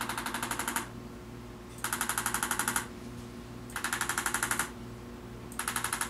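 Arthrostim handheld chiropractic adjusting instrument firing rapid taps, about a dozen a second, in bursts of about a second roughly every two seconds, four bursts in all. It is delivering an instrument adjustment to a pregnant patient's rib cage.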